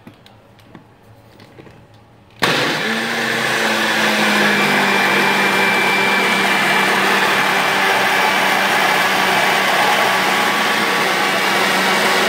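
Personal bullet-style blender switched on about two and a half seconds in, starting abruptly, then running steadily and loudly as it blends strawberries, milk and ice. Its motor hum dips slightly just after starting, then holds steady.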